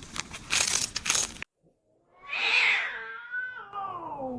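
A stretch of crackling noise with clicks cuts off about a second and a half in; after a short silence, a cat gives one long meow whose pitch slides steadily downward.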